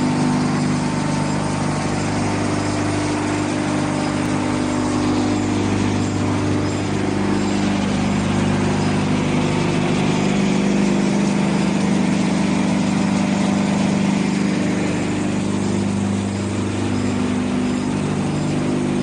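Machinery of a sawdust drying and wood pellet line running steadily: a loud, even drone with several held low tones.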